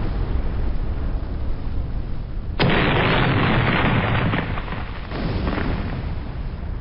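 Battlefield sound effect of an artillery shell exploding: a sudden blast about two and a half seconds in, over a steady low rumble, dying away over a couple of seconds with a smaller second swell.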